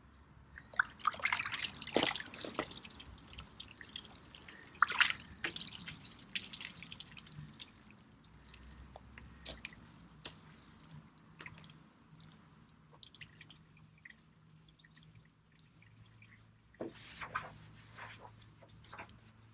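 Water splashing and dripping in short bursts as something is rinsed with clean water, with quieter drips in between.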